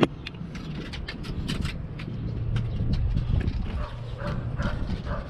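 Light clicks and ticks of small metal parts being handled and threaded onto a motorcycle tire's valve stem, as a locking nut is fitted ahead of a tire pressure sensor, with one sharper click at the very start.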